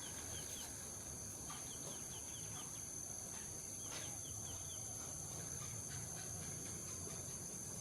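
A steady, high insect drone with a small bird's quick chirps over it, coming in short runs of five or six notes, three times in the first half.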